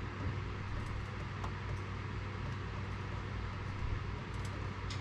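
Steady low hum with a hiss over it, and a few faint clicks and taps.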